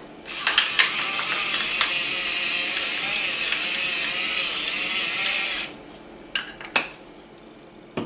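Pepper mill grinding peppercorns: a steady, gritty grinding for about five seconds, followed by two sharp knocks.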